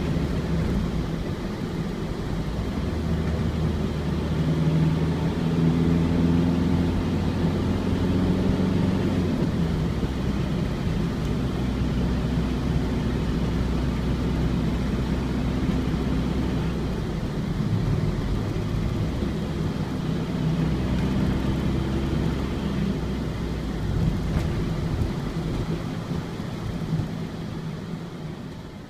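Ford Transit's four-cylinder diesel engine running on the road, heard from inside the cab over tyre and road noise, its note rising and falling with changes of speed. The sound fades out near the end.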